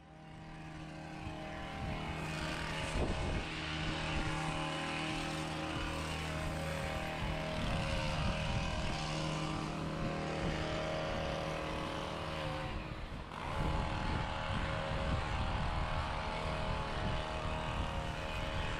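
A steady engine drone with a constant low hum, swelling over the first couple of seconds and dipping briefly about thirteen seconds in.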